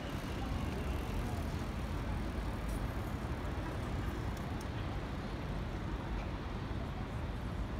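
City street ambience: a steady low rumble of road traffic, with a few faint ticks partway through.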